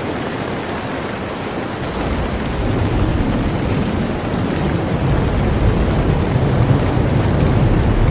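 Wind and water noise on the bow of a sailing ship under way, with wind buffeting the microphone; a low rumble swells about two seconds in and stays loud.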